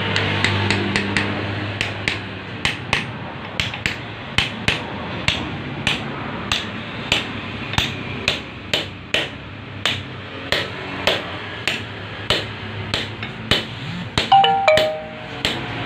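Small hammer tapping a ball bearing onto a turned steel shaft held in a lathe chuck, seating it: sharp metal-on-metal taps about two or three a second. Near the end a few harder blows leave a short metallic ring.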